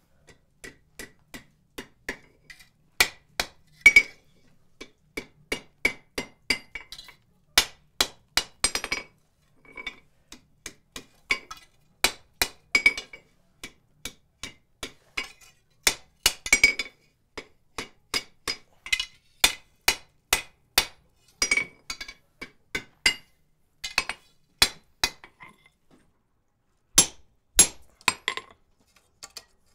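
Blacksmith's hand hammer striking hot iron on an anvil, drawing out one leg of a split strap-hinge finial, in irregular runs of blows, each with a short metallic ring. Near the end the hammer strikes a hand-held chisel set on the hot finial, giving a few of the hardest blows.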